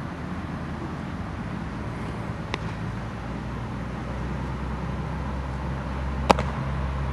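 A baseball smacking into a leather fielder's glove on an overhead catch near the end, one short, sharp pop. A fainter sharp crack comes about two and a half seconds in, over a steady low hum.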